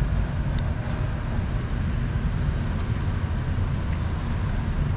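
Steady low rumble with a few faint, crisp clicks of cats crunching dry kibble from a plastic tub.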